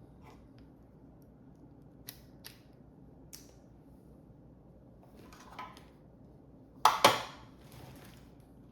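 Screws and a screwdriver handled while refitting the cover of a sewing-machine knee speed controller: a few light clicks, a short rustle, then two sharp knocks close together about seven seconds in, the loudest sounds.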